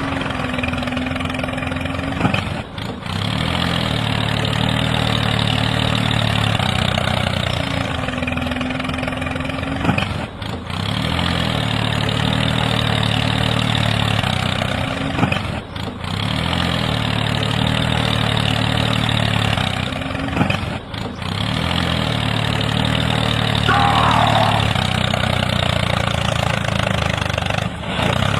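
Tractor engine running and idling, in a pattern that repeats about every five seconds, each cycle opening with a brief break and a falling pitch.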